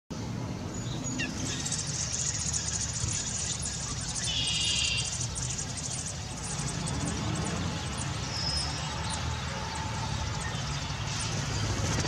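Birds chirping in a rapid high patter, with a short clear call about four seconds in, over a steady low rumble of outdoor background noise.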